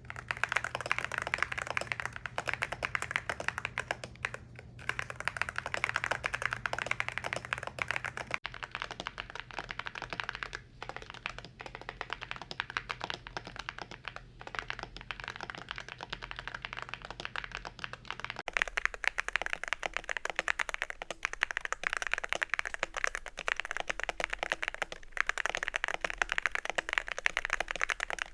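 Continuous typing on a YUNZII C75 mechanical keyboard fitted with Milk V2 switches and a jelly-tape-filled spacebar: a dense run of keystroke clacks with a few brief pauses.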